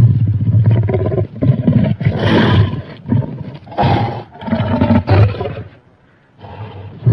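Fictional monster roar for King Caesar, built from big cat, gorilla and elephant roars and human vocalizing: a loud, rough, growling roar in several pulsing bursts, dying down about six seconds in before another roar starts.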